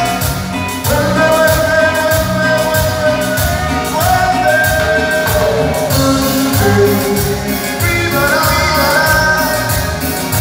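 Live Latin music from a band over the PA, with a male singer holding long notes over a steady beat.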